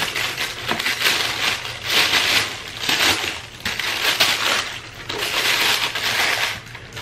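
Packing paper in a cardboard shoe box rustling and crinkling as it is pulled out and unfolded by hand, in a run of loud swells about a second apart.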